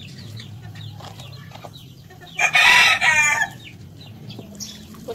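A rooster crows once, loudly, about two and a half seconds in, the call lasting about a second, with faint clucking around it.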